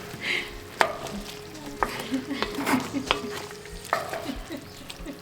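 Oxtail sizzling in a cast iron potjie while it is stirred, a utensil knocking and scraping against the pot about six times.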